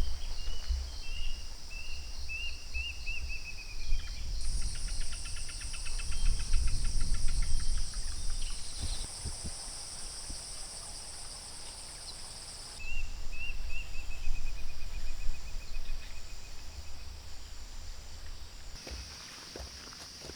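Outdoor natural ambience: insects chirring steadily at a high pitch throughout. Twice, once near the start and again about 13 seconds in, a bird gives a run of short calls that step down in pitch. A low rumble runs underneath.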